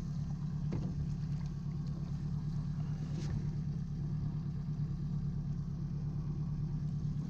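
A boat's motor running steadily with an even low hum.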